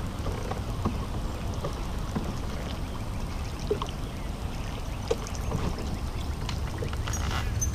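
Water trickling and lapping against a fishing kayak's hull over a low steady rumble, with scattered small clicks and a brief whirring buzz near the end.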